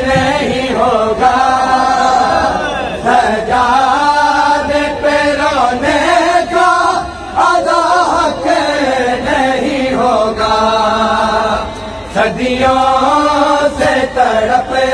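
Male voices chanting an Urdu noha, a Shia lament for Imam Hussain's family, in long melodic phrases.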